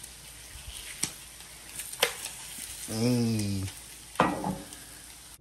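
Two eggs sizzling steadily as they fry in a nonstick frying pan, with a few sharp clicks about a second apart.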